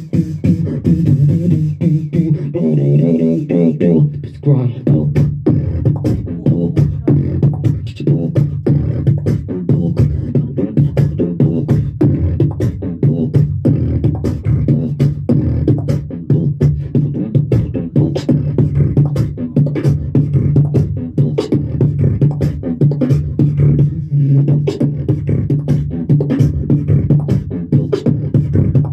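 Solo competitive beatboxing amplified through a handheld microphone: a steady, heavy low bass tone held under a fast, even run of sharp clicks and snare-like hits.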